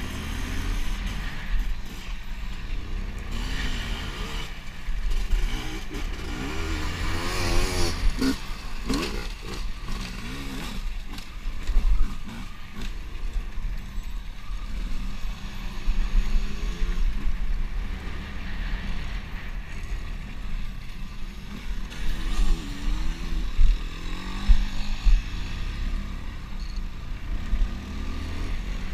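Motocross dirt bike engine revving up and falling off again and again as it is ridden over the track, with heavy wind rumble on a helmet-mounted microphone.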